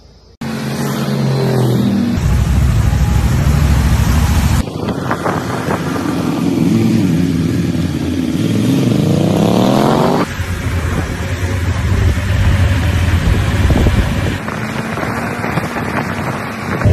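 Motorcycle engines running on the road, in a run of short clips that cut abruptly from one to the next. In the longest clip, about five seconds long, the engine pitch climbs steadily as the bike accelerates.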